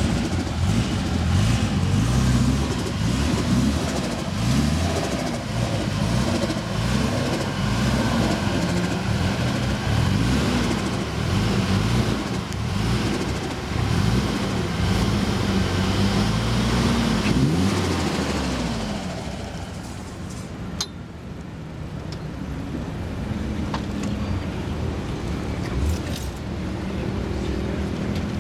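Modified Nissan Silvia S15's turbocharged four-cylinder engine running at low revs while it is manoeuvred into a parking spot, its pitch rising and falling with small throttle blips. About 18 seconds in it settles into a quieter, steady idle.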